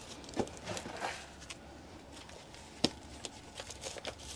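Scattered light clicks and rustles of hands handling a potted geranium and its pot, with one sharper click nearly three seconds in.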